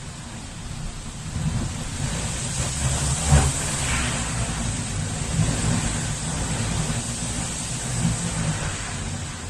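Strong gusty wind buffeting the microphone in a low, rumbling roar that swells and eases, with a sharper blast about three seconds in.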